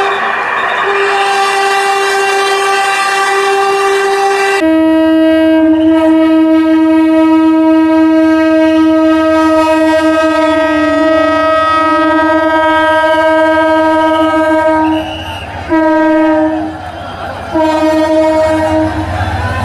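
Train horn sounding long, loud held blasts. About four and a half seconds in it switches abruptly to a lower-pitched horn, which breaks off twice briefly near the end before sounding again.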